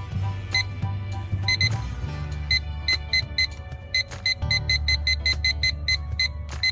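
Electronic alarm of a THM019-MPK1 radio-controlled dual alarm clock beeping: short high beeps, scattered at first, then coming faster until they run at about four a second. Background music plays underneath.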